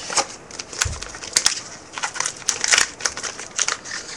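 A trading-card pack's wrapper crinkling and tearing as it is opened. It makes a rapid, irregular run of crackles, with one dull low thump about a second in.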